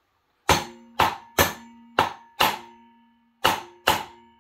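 Seven sharp metal-on-metal strikes on a part of a seized Honda engine being taken apart, coming in small groups. Each strike leaves a clear metallic ringing tone that hangs on between blows.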